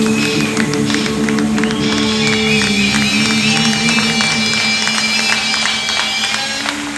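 Live blues band playing: amplified harmonica holding a long, high, wavering note over upright bass, electric guitar and drums with cymbal hits.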